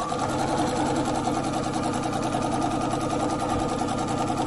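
Sewing machine starting up and then running at a steady speed, the needle stitching rapidly as it sews chenille bias tape down onto quilt fabric.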